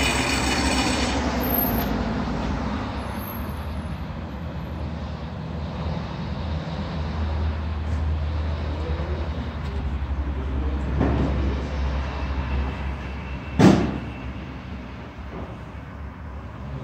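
Raimondi Jollyna tile saw finishing a 46° mitre cut through a ceramic tile, the cutting noise dying away in the first second, then the saw's motor running on with a steady low hum. One sharp knock about 14 seconds in.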